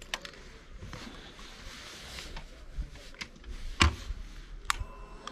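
A few light clicks and taps over a faint hiss as a hand handles the motorcycle's handlebar controls and fuel tank, the loudest knock about four seconds in. Faint steady tones come in near the end.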